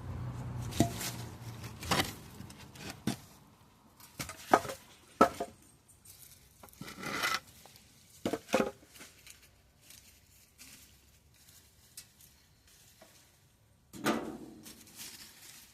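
Digging through soil in a potato bed: irregular scrapes and knocks as dirt is dug and pushed aside, with a longer scraping rustle about 7 seconds in and again near the end.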